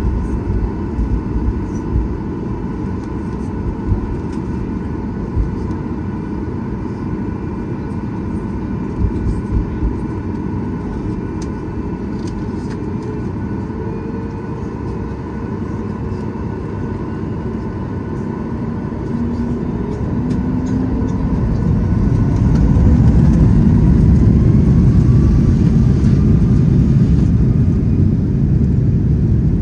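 Boeing 737 MAX 8 cabin noise from a window seat over the wing: the CFM LEAP-1B engines run with a steady low rumble and a faint whine while taxiing. About two-thirds of the way in they spool up for takeoff, the rumble growing louder and faint tones gliding upward.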